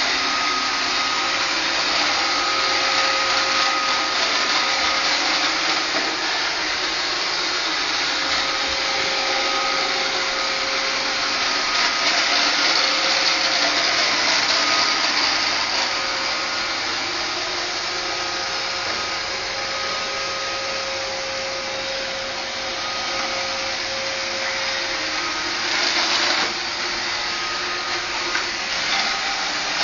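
Roomba 560 robot vacuum running, a steady whir of its vacuum motor and brushes with thin whining tones that come and go. A brief louder rattle near the end.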